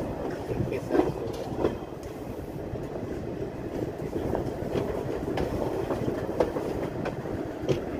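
Doon Express passenger coach running on the rails as the train pulls into a station, heard from inside: a steady rumble with irregular sharp clanks from the wheels and couplings.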